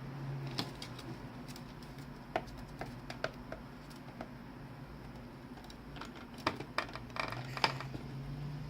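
Pet ferret chewing and gnawing: irregular sharp clicks and crunches, a few at a time, coming thickest in the last few seconds.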